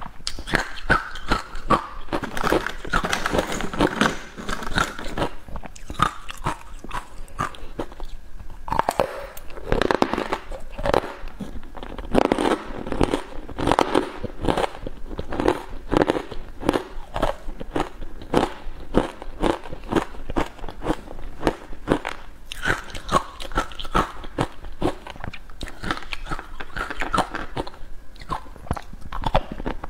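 Carbonated ice being bitten and chewed close to the microphone: dense, crisp crunching and cracking, several crunches a second.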